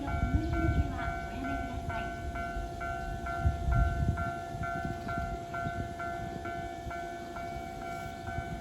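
Japanese railway level-crossing warning bell ringing in a steady, evenly repeating pattern of pitched strikes. Under it is the low rumble of a train on the tracks, loudest about a second in and again around three and a half to four seconds.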